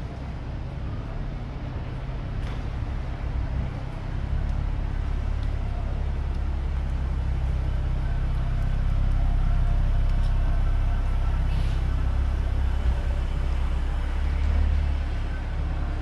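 A vehicle engine running close by in street traffic: a low rumble that swells about four seconds in and eases off near the end.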